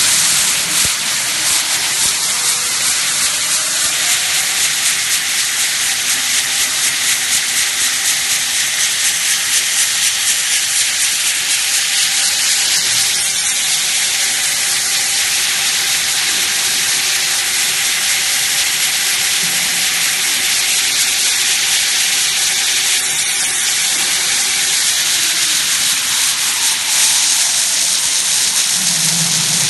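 Adhesive tape slitting and rewinding machine running, winding clear packing tape onto rows of cores on two shafts: a loud, steady hiss with a faint pulsing about twice a second.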